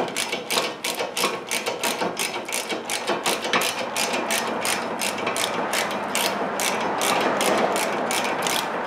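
Hand ratchet clicking steadily as it backs out a loosened brake caliper mounting bracket bolt, about four to five clicks a second.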